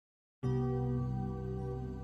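Ambient new-age intro music: a sustained, held chord that starts suddenly about half a second in after silence.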